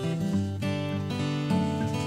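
Background music: a strummed acoustic guitar tune with a steady rhythm.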